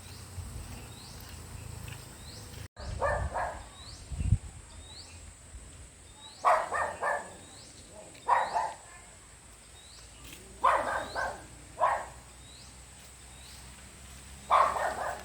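An animal calling in loud short bursts, two or three calls at a time, every few seconds. Under it runs a faint high chirp repeating about once a second.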